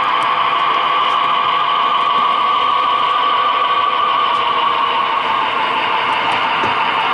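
Model train running along the track, heard from a camera riding on it: a steady whir of motor and wheels with faint scattered clicks.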